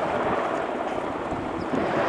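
Sikorsky S-92 helicopter running on the ground with its rotor turning, heard from a distance as a steady rush of turbine and rotor noise.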